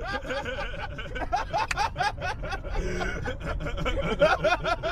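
Several people laughing together in quick, repeated bursts.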